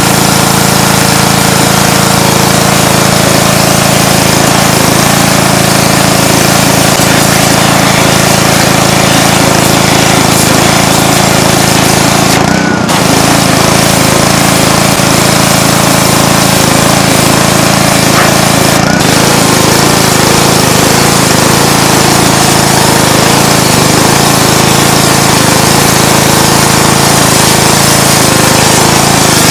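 Gasoline pressure washer running steadily under load, its engine humming beneath the loud constant hiss of a high-pressure water-and-sand jet blasting rusty steel through a sandblasting attachment. The sound dips briefly once, about thirteen seconds in.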